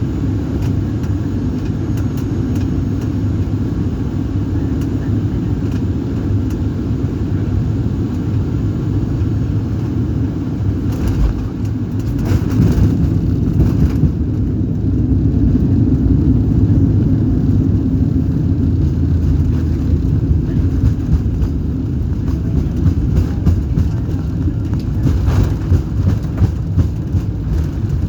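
Cabin noise inside a Boeing 737-800 during its landing: a steady low rumble of its CFM56-7B engines and airflow, growing louder and rougher about twelve seconds in, with scattered rattles.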